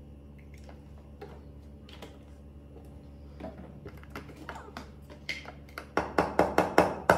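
Clicks and taps from a powdered-milk can's plastic lid and tin being handled: sparse and faint at first, busier after a few seconds, then a fast run of louder clicks near the end.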